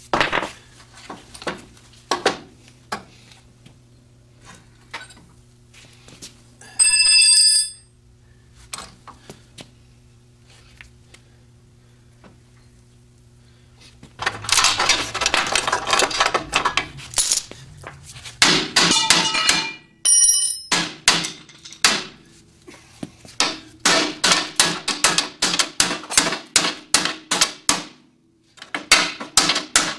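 Hammer blows on a steel truck-frame crossmember: a few scattered strikes, then long runs of quick blows about four a second, with a short metallic ring twice. The bent crossmember is being worked straight while held under load by a chain and a hydraulic porta-power ram.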